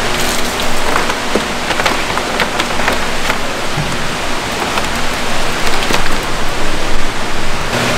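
Water splashing and pouring as a live fish is lifted in a landing net from an aerated holding tank and dropped into a plastic crate, with many sharp splashes over a steady rush of tank water.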